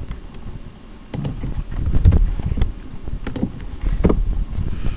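Computer keyboard being typed on: irregular key clicks, with low thuds underneath.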